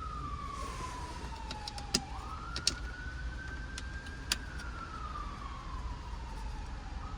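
Siren wailing slowly up and down, one tone that rises and falls about once every five seconds. A few sharp clicks stand out about two, two and a half, and four seconds in.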